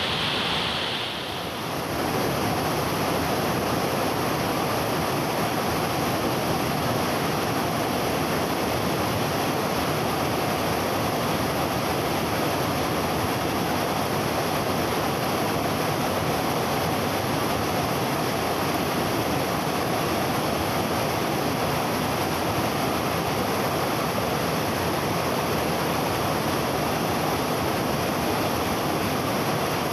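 Waterfall with water rushing down heavily, a steady, dense rush, with a short dip in level about a second in before it settles.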